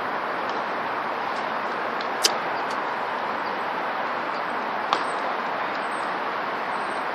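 Steady outdoor background noise, an even hiss, broken twice by a short sharp click, about two and a half seconds apart.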